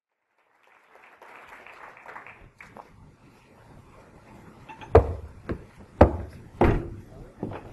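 A few loud, sharp thumps in the second half, the strongest about a second apart, ringing on in a large hall, over a faint murmur of voices.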